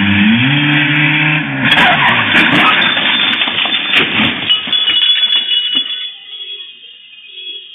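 A car engine revving hard, its pitch climbing, then a loud car crash about two seconds in: a run of sharp impacts and crunching, with another hit about four seconds in, before the noise dies down.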